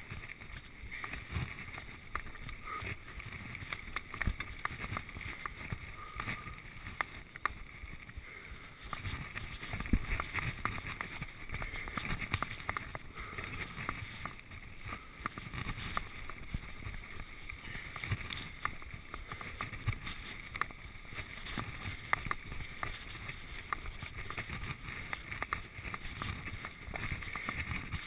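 Full-suspension mountain bike (Giant Trance 1) riding fast over a bumpy leaf-covered dirt and gravel trail: tyre rumble and rush with frequent rattles and knocks from the bike over bumps, a harder knock about ten seconds in.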